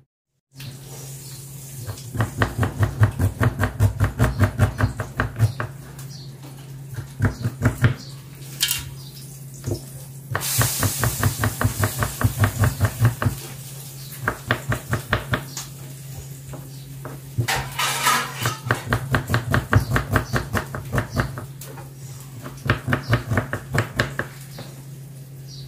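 Kitchen knife slicing a red onion on a plastic cutting board: several runs of quick, even knife strokes against the board, each run a few seconds long with short pauses between.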